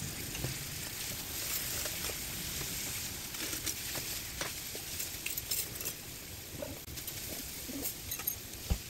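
Diced meat and sauce sizzling in a non-stick frying pan, stirred with a silicone spatula, with small scrapes and pops over a steady hiss. A soft knock near the end.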